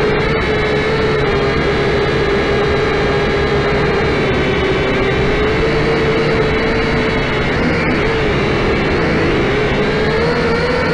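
Syma X5C quadcopter's four small brushed electric motors and propellers buzzing steadily, heard close up through the drone's own onboard camera. The pitch dips a little and rises again near the end as the throttle shifts.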